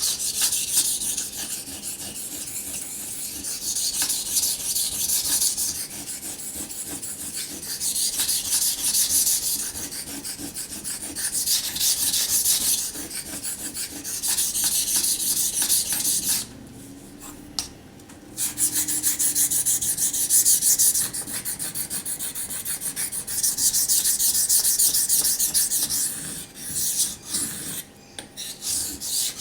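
SOG Flash 2 knife blade scraping in quick strokes across a wet 600-grit Naniwa Chosera waterstone. The hiss comes in spells of a few seconds, with a brief pause about seventeen seconds in.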